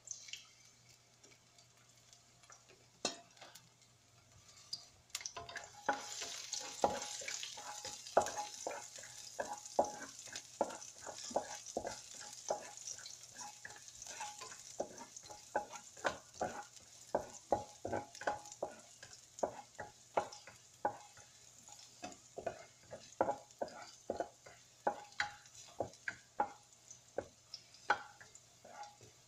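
Spatula scraping and knocking against a wok while stir-frying eggplant. A sizzle rises about six seconds in and then eases, under a steady run of spatula strikes, about one to two a second.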